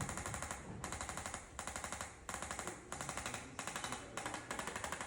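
Handheld electric chiropractic adjusting instrument firing along the neck: rapid clicking taps in a series of short bursts, each under a second, with brief pauses between them.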